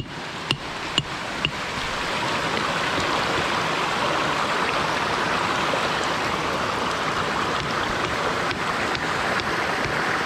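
Creek water rushing steadily over rocks. A few sharp taps, about two a second, sound in the first second and a half.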